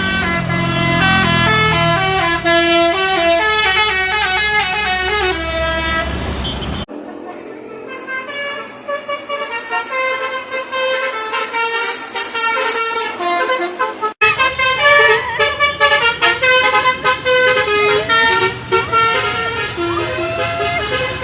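Basuri telolet bus horns, the multi-trumpet musical horns of Indonesian buses, playing quick tunes of stepped tones. The recording breaks off abruptly about seven and fourteen seconds in as another horn tune takes over.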